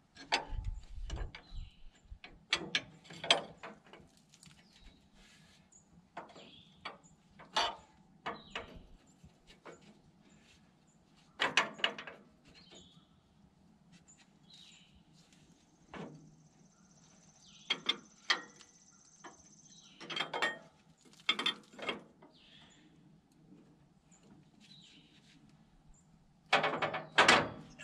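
Steel wrenches clinking and knocking against a hydraulic hose fitting as it is worked loose, in irregular bursts of sharp metal clicks with a louder cluster near the end.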